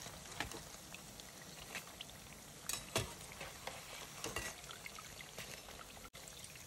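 Puff pastry patties deep-frying in hot oil with a steady sizzle. A few sharp metal clinks come through it as a slotted steel spatula and a wire skimmer knock against the pan while the fried patties are lifted out.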